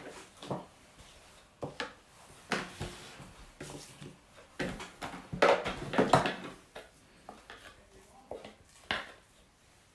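A spatula scraping and knocking against the plastic bowl of a Moulinex food processor, an irregular run of scrapes and taps that is busiest around the middle, and the bowl being lifted off the machine's base.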